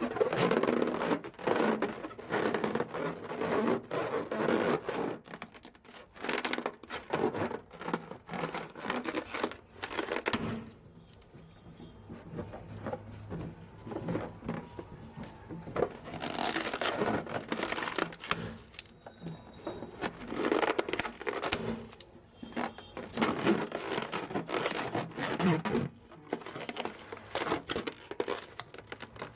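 Balloons being handled and squeezed: bursts of crinkling, rubbing and crackling with many sharp clicks, coming in clusters of a few seconds with quieter gaps between.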